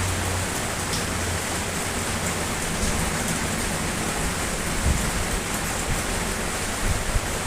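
Steady, heavy rain falling as an even hiss, with a few brief low thuds about five seconds in and near the end.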